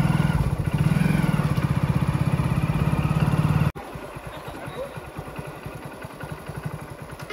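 Motorcycle engine running with a steady, even pulse. Partway through it drops sharply in level and goes on more quietly.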